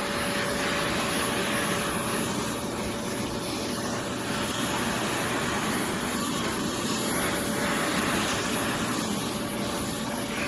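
Oreck Commercial XL Pro 5 compact canister vacuum cleaner running steadily: an even rushing whir with a constant whine.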